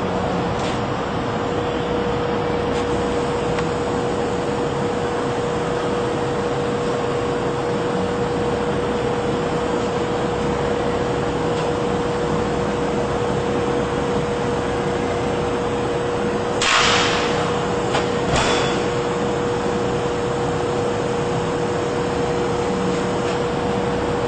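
A roll splitter (core slabber) running through its cycle: a steady mechanical hum with one constant tone, broken about two-thirds of the way through by two short, sharp hisses a second and a half apart.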